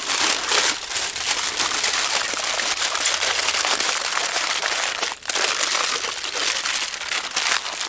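Aluminium foil being folded and scrunched by hand into a closed packet: continuous crinkling, with a short pause about five seconds in.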